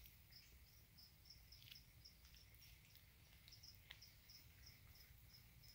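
Faint, regular chirping of crickets kept in lizard tanks, about three chirps a second, with a few faint clicks in between.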